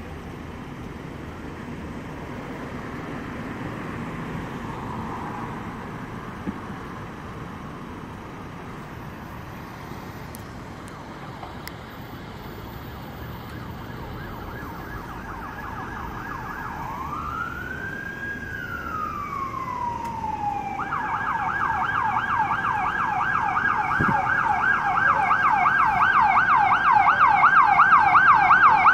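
Emergency vehicle siren growing steadily louder as it approaches over street noise. It starts faint about halfway through, sweeps up and down in one slow wail, then switches to a fast yelp.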